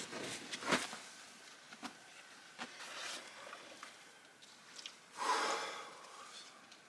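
Leather pack being handled: rustling, scraping and light knocks as a gourd canteen on a cord is pulled out of it, with the loudest, half-second rustle a little after five seconds in.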